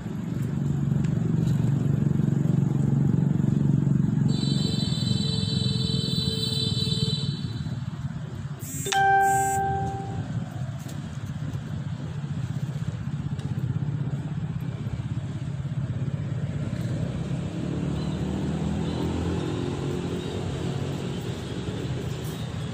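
Steady low rumble of a motor running, with a high-pitched tone for about three seconds starting about four seconds in and a click followed by a short tone about nine seconds in.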